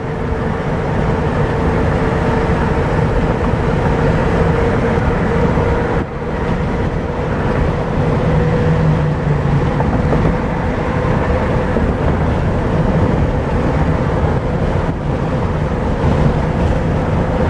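Road and engine noise of a car cruising on a freeway, heard from inside the cabin: a steady rumble with a thin, steady hum above it.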